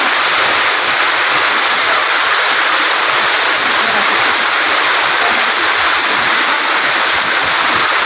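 Waterfall pouring over rock: a loud, steady rush of falling water.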